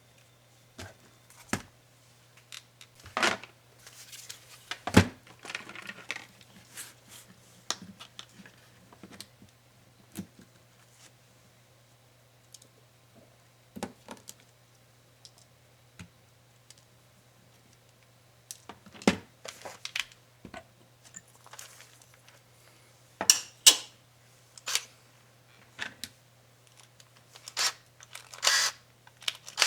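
Laptop parts being handled and pried during disassembly: scattered clicks, taps and short scrapes, busiest near the start and again near the end, over a low steady hum.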